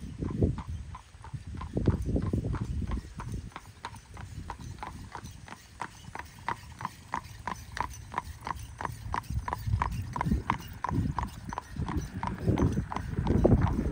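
Shod horse's hooves clip-clopping on asphalt as it trots in harness pulling a buggy, a steady beat of about three clops a second. Low rumbling swells now and then, loudest near the end.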